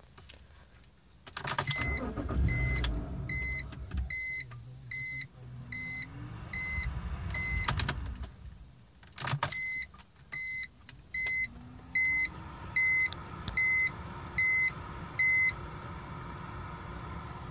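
2005 BMW 325i that won't start: a warning chime beeps evenly, about once every 0.8 seconds, in two long runs. Under the beeps are a low rumble and several sharp clicks as starting is tried.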